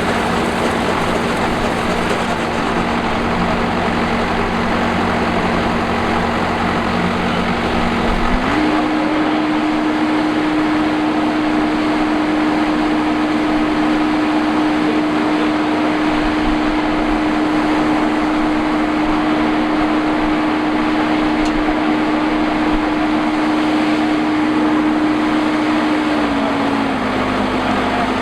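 Engine of a rice harvesting machine running steadily under load. Its pitch steps up about eight seconds in and drops back a little near the end.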